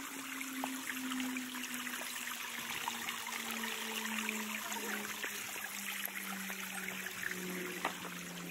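Shallow stream trickling over rocks: a steady rushing hiss with scattered small clicks.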